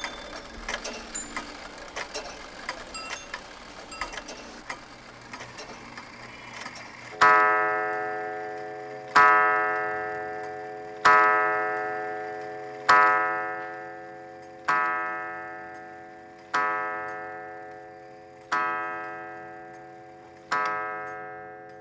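Clockwork clicking and ticking, then a clock striking eight times, about two seconds apart; each strike is the same ringing note that slowly dies away.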